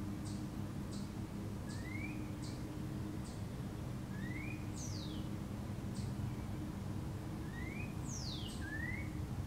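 Wild songbirds calling: short high chirps, quick rising notes and a few high whistles that sweep steeply downward, repeating every few seconds over a steady low hum.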